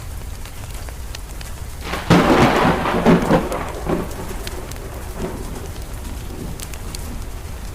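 A thunderclap about two seconds in, cracking loudly and then rumbling off over about two seconds. Under it are steady rain and the sharp, scattered pops of a crackling wood fire.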